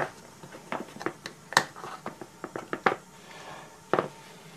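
A pepper container being handled and shaken over raw beef patties. It gives about a dozen irregular, sharp clicks and taps, with the loudest at the start, about one and a half seconds in and about four seconds in.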